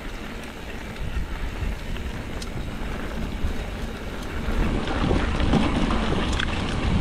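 Wind rushing over the microphone of a mountain bike descending a trail, with scattered clicks and rattles from the bike over the ground. The rush grows louder from about five seconds in.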